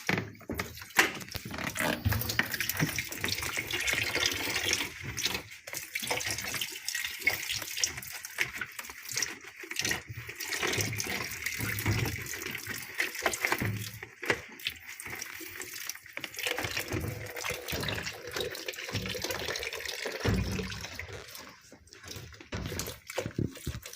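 Water running from a tap while washing-machine parts are scrubbed and rinsed under it, with irregular knocks and clatter of the parts being handled.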